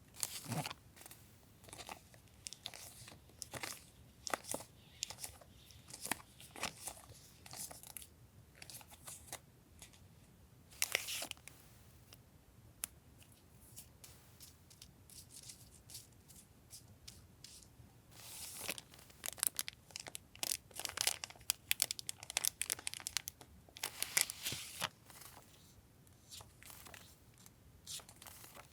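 Paper stationery and plastic wrappers being handled and unpacked: irregular rustles, crinkles and light clicks. The busiest stretch is in the last third, with one longer rustle about eleven seconds in.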